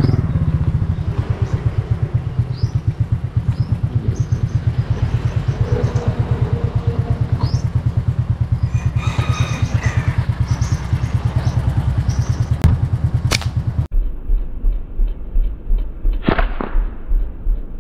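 Motorbike engine idling with an even low pulse while small birds chirp; about twelve and a half seconds in come two sharp snaps of a slingshot shot.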